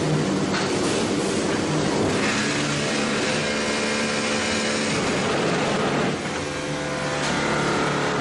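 A QT4-20C concrete block-making machine running: a steady mechanical din with several steady whining tones over it, easing off slightly about six seconds in.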